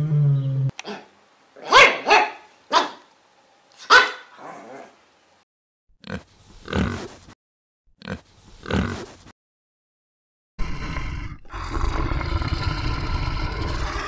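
A run of short, sharp animal calls, with wild boar squealing and grunting, then after a brief pause a continuous rough growling from brown bears at play, starting about ten and a half seconds in.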